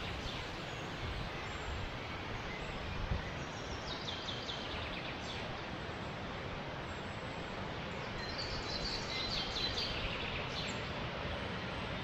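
Steady rushing of a mountain river, with a small bird singing a short run of high chirps about four seconds in and again near nine seconds.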